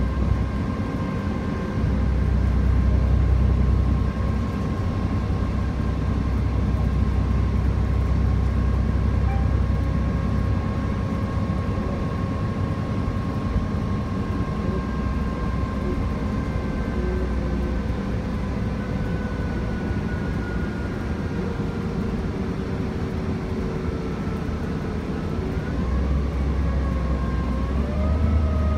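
City bus running steadily: a continuous low engine rumble with a faint whine that sags slowly in pitch, then climbs again near the end.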